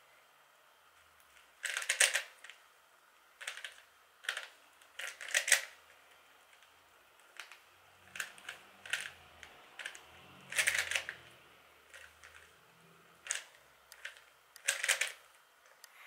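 A 3x3 Rubik's cube being turned by hand: its plastic layers click and clack in short bursts of quick turns, with brief pauses between them.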